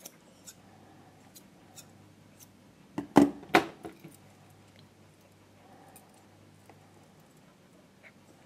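Grooming scissors trimming hair around a dog's foot: a few light snips, then two loud clacks about three seconds in.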